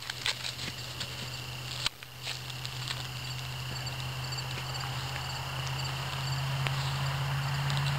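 Crinkle-filled plush toy crackling in short irregular spurts as a Canada lynx bites and chews it. Behind it are a steady high insect chirring and a low steady hum that grows a little louder toward the end.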